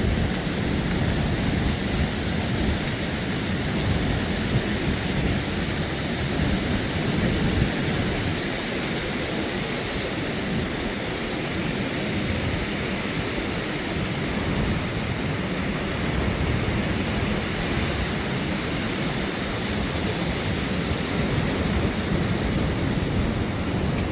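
Steady wash of rain, wind and ocean surf, with a heavy low rumble that swells and fades.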